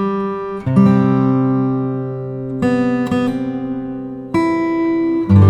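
Background music: sustained chords struck anew every second or two, with a fresh chord about a second in, another past the middle, and another near the end.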